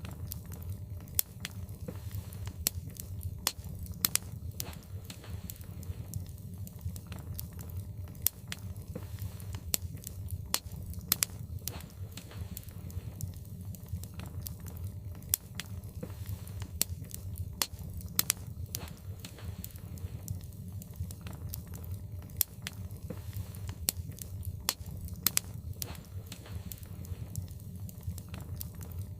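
Wood fire burning in a fireplace, crackling with frequent irregular sharp pops over a steady low rumble of the flames.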